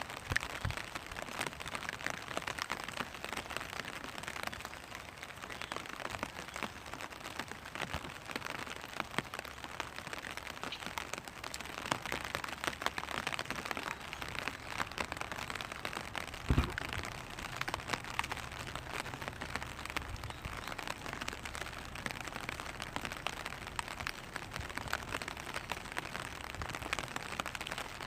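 Rain falling on a clear vinyl umbrella: many small drops ticking steadily on the plastic canopy. One louder, heavier thump a little past the middle.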